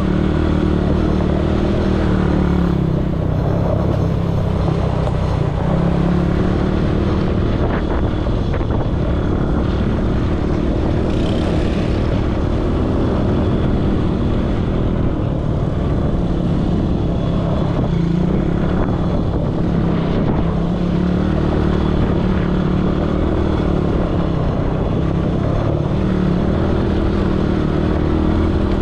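ATV engine running steadily under way, its pitch rising and falling slightly as the throttle varies.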